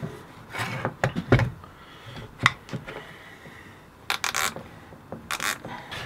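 Handling noise on a wooden workbench as an air-horn compressor, hose and wiring are moved into place: a few sharp knocks in the first second and a half, another at about two and a half seconds, then two short scraping rustles near the end. The horn itself does not sound.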